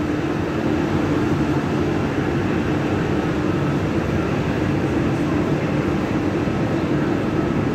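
Steady hum of a train standing at the station platform, its running equipment holding one even pitch over a constant noise bed.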